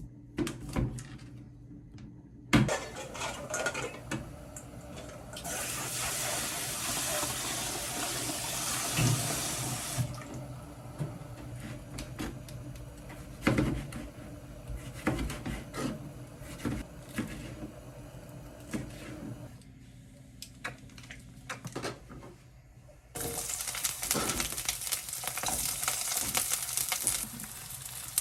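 Kitchen work: a tap runs for about four seconds, and pots, dishes and utensils knock and clink. Near the end a steady hiss starts up again and carries on.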